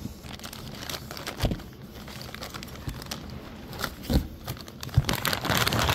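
Plastic parts bags crinkling and rustling as a hand digs through a cardboard box of engine parts, with a few light knocks of parts against each other.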